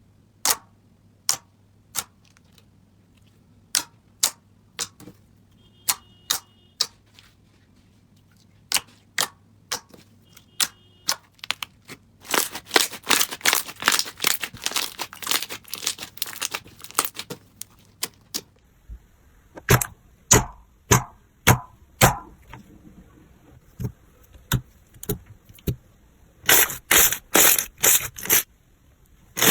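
Slime being pressed and poked by hand, giving sharp clicking pops one at a time, then in quick crackling runs, the first run starting about twelve seconds in and another near the end.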